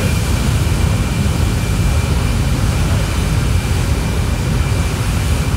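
Drag-racing jet truck's jet engine running steadily: a deep rumble under a steady high whine, with the truck still at the line and not yet launched.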